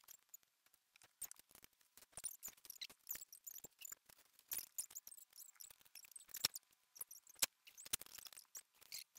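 Small plastic Sluban building-block parts clicking: tiny pieces being popped off their plastic sprues and set down on the table, an irregular run of light clicks with a couple of louder ones past the middle.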